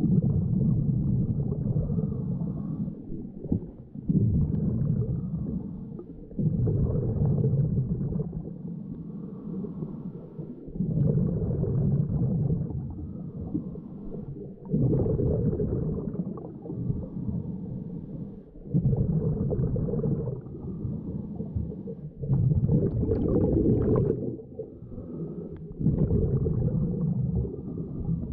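Scuba diver breathing through a regulator underwater: a low bubbling rumble of exhaled air about every four seconds, with quieter inhales between.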